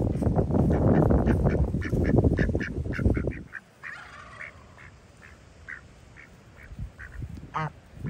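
Domestic ducks quacking softly in quick runs of short quacks as they forage, with wind rumbling on the microphone for the first three seconds or so. There is one longer call near the end.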